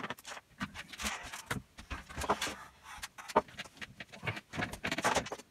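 Hands handling small parts and tools on a workbench: an irregular run of clicks, knocks and rustles, with one sharp knock about three and a half seconds in.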